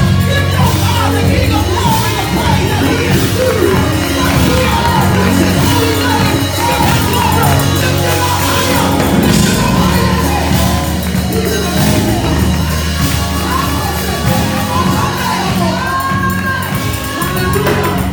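Live gospel choir singing over a full band with a steady bass line, with shouts from the congregation.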